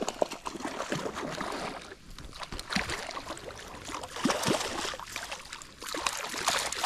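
Water splashing and sloshing in irregular bursts as a hooked cutthroat trout thrashes at the surface while it is brought in to hand.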